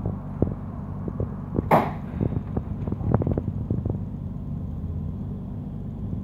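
Manchester Metrolink tram running, heard from inside the car: a steady low hum with scattered knocks and rattles, and a brief loud rush of noise about two seconds in.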